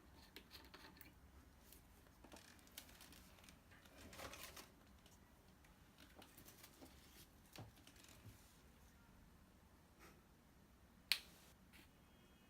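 Faint scattered clicks and rustling from handling small plastic ink-cartridge refill parts, with one sharp click near the end.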